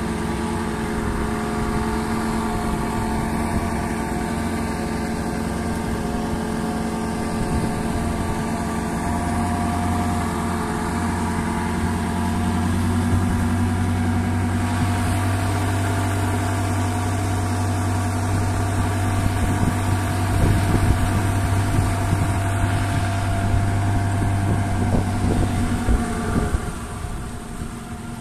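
Small boat's engine running steadily under way, then easing off, its level falling away a second or two before the end.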